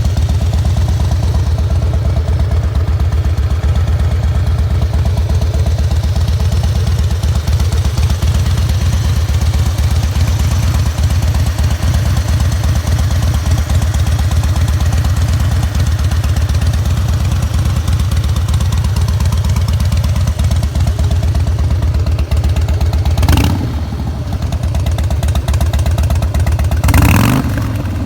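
Harley-Davidson Fat Boy's fuel-injected Twin Cam 88B V-twin idling with a steady, loping beat, then blipped twice near the end, each rev rising and falling quickly.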